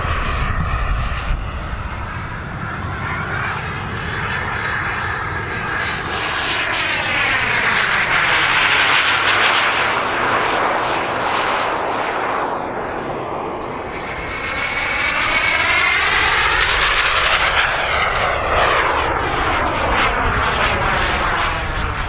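Radio-controlled MB-339 jet model flying past, its jet whine and rush swelling and fading. It makes two loud passes, about a third of the way in and again about three-quarters through, with a sweeping, phasing sound as it goes by.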